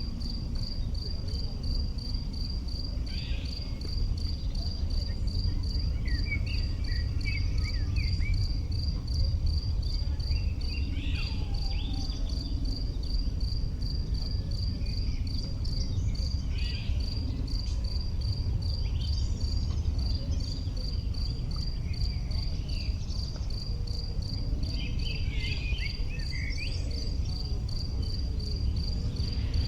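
An insect chirping in a steady, even rhythm of short high pulses, about three a second, over a low steady rumble. Short chirping calls come and go now and then.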